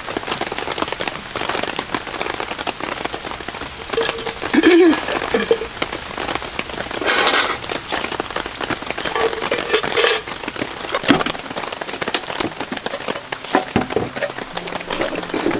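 Steady rain pattering on a camping tarp, with a few brief rustles and knocks of dishes being handled and wiped dry.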